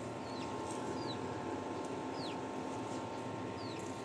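Small birds chirping outdoors: about five short, high chirps that each slide downward in pitch, spread across a few seconds, over a steady background hiss with a faint constant hum.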